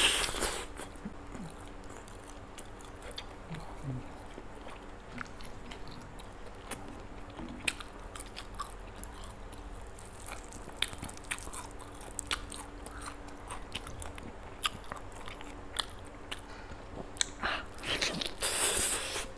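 Close-up chewing and biting into spiced roast chicken: wet mouth sounds with scattered small crunches and clicks, and a louder, second-long crunch near the end.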